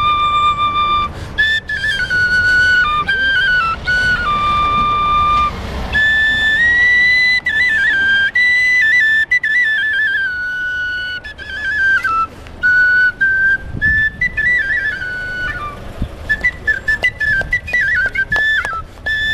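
A small flute playing a lively high melody of quick stepping notes and runs, with handclaps joining in near the end.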